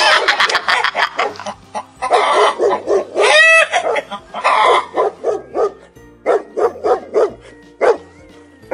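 Dog barking over and over in quick, short barks, a dubbed-in sound effect for a toy dog, with one longer call that rises and falls about three and a half seconds in. Background music plays underneath.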